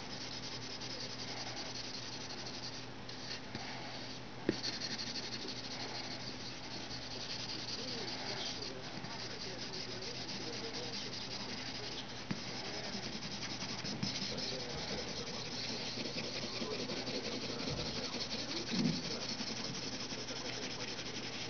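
Pencil shading on paper: the point scratches and rubs across the sheet in continuous quick strokes, with a sharp tap about four and a half seconds in.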